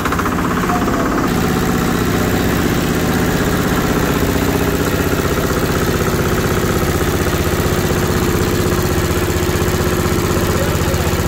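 Small single-cylinder stationary diesel engine running steadily at idle-like speed, just after being hand-cranked, turning a belt-driven meat grinder.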